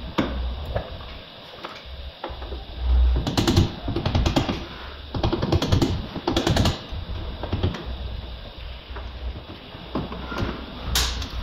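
Irregular metallic clicking and rattling from hand work on the window mechanism inside a stripped car door, coming in bursts: about three seconds in, again from about five to seven seconds, and once more near the end.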